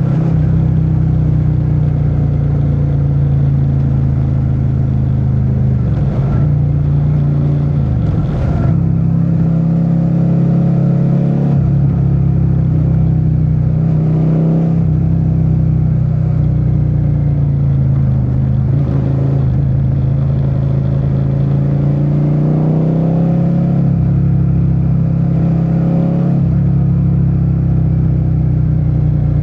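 Suzuki SV650's V-twin engine running steadily under way. Its note dips briefly several times as the throttle eases and comes back on.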